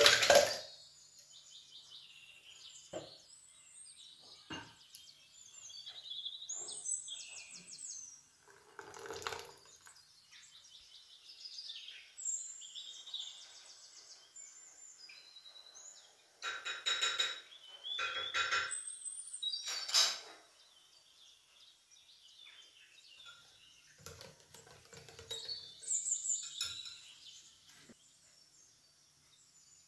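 Birds chirping now and then in the background, with kitchen sounds of utensils against a glass mixing bowl: a loud clatter at the very start and a few bursts of rapid clinking just past the middle.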